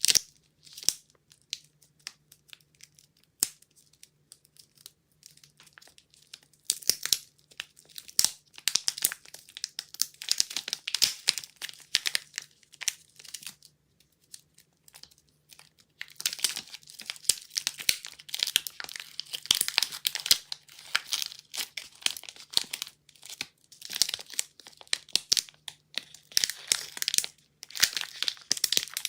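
Soap-bar wrappings being torn open and crinkled by hand, in bursts of sharp crackling and tearing with short pauses between. A faint steady low hum lies underneath.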